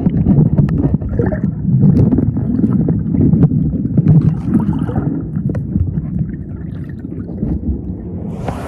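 Low, churning rumble of ocean surf mixed with wind buffeting the microphone, with scattered short clicks. It eases off after about five seconds.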